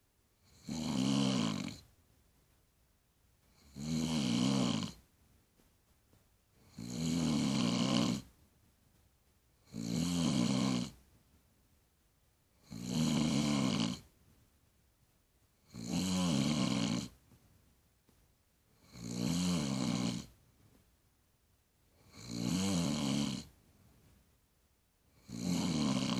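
A woman snoring loudly in her sleep: nine pitched snores, about one every three seconds, each lasting about a second, with quiet in between.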